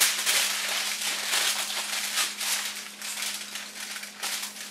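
Aluminium foil crinkling and crackling as hands crimp it down around the rim of a baking dish, with many quick crackles that ease off near the end.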